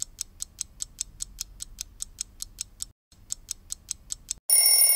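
Fast clock-ticking sound effect, about five ticks a second, with a brief break around the middle. Near the end a loud alarm starts ringing with steady high tones, the loudest sound here.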